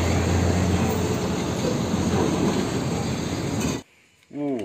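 Heavy tanker truck driving by: low diesel engine hum under loud road and tyre noise, which cuts off abruptly just under four seconds in.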